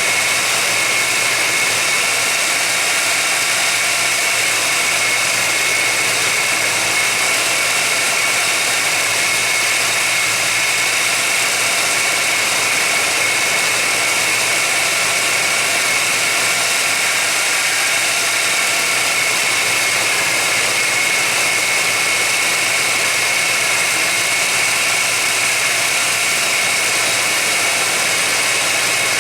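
1991 GMC Jimmy's engine idling steadily, an engine the owner suspects of having a vacuum leak. A constant high tone and hiss run over the engine sound.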